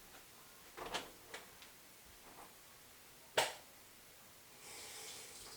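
A few light clicks and one sharper knock of things being handled, then about a second of soft hissing water trickling onto the cloth used to wipe a soldering gun's tip.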